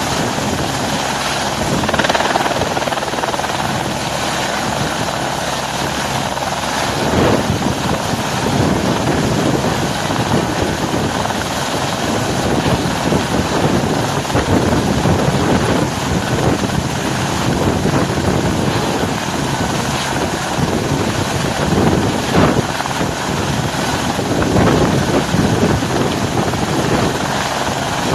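Helicopter running close by, a loud, steady rotor and engine sound that swells and eases every few seconds.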